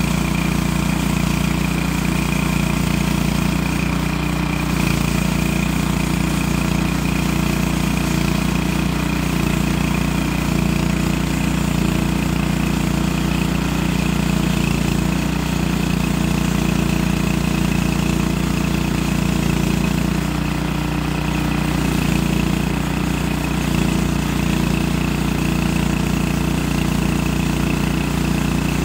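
Small gas engine of a manual portable bandsaw sawmill running steadily while the blade cuts through a log.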